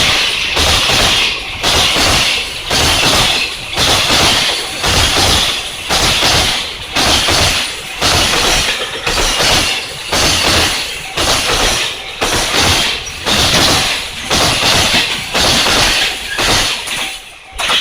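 Freight train's wagons rushing past at speed: a loud steady rush that pulses about every 0.7 s as each wagon goes by, dropping away near the end as the last wagon passes.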